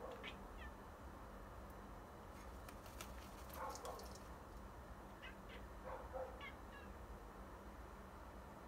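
Crow cawing: two harsh caws a couple of seconds apart, with short higher chirps between them.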